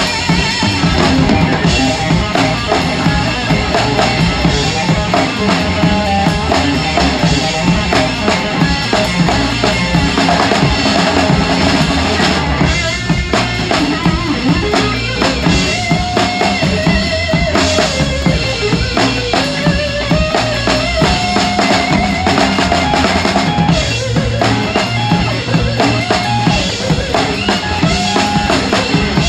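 Live rock trio heard close to the drummer: a drum kit with a 26-inch bass drum, toms and large ride cymbals played hard and steadily, with the rest of the band underneath.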